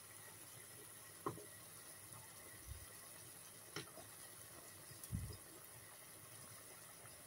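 Saucepan of beef in water at a rolling boil, bubbling faintly and steadily, with a few light knocks as wooden chopsticks poke and turn the meat against the pan.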